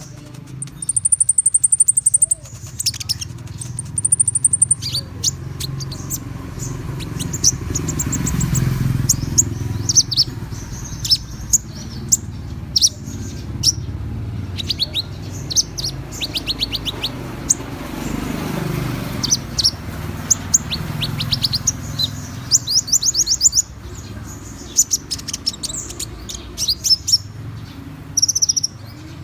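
Kolibri ninja (konin) sunbird song: rapid, very high-pitched chirps and fast trills in quick repeated bursts, with a few held high whistles in the first few seconds, over a steady low background rumble.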